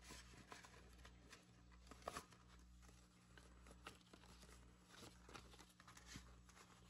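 Faint rustling and soft crisp clicks of paper banknotes being handled and counted out, over a low steady hum.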